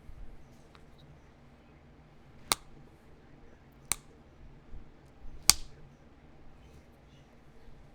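Three sharp snaps, about a second and a half apart, with a few fainter ticks: pressure flakes popping off the edge of a heat-treated chert point under a pressure flaker.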